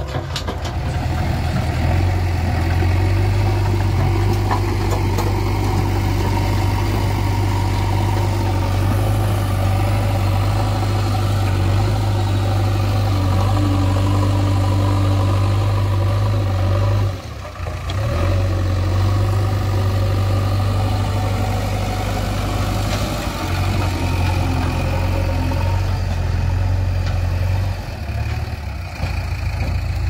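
JCB backhoe loader's diesel engine running steadily while the machine works a pile of dirt and stones, with a deep, even hum. It drops out for a moment a little past halfway, then carries on.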